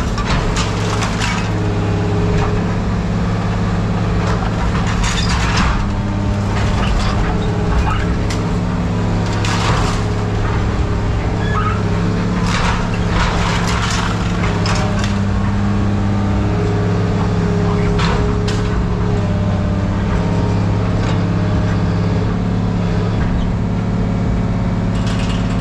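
Engine of a scrap-handling machine running steadily, its pitch stepping up and down as it works, with scattered sharp clanks throughout.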